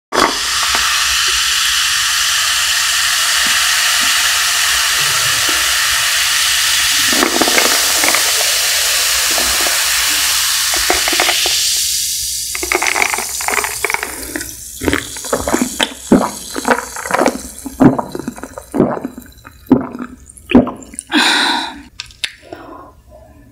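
Coca-Cola poured from a can into a glass mug of ice: a steady fizzing pour for about the first twelve seconds, then irregular crackles and pops from the fizzing soda and ice.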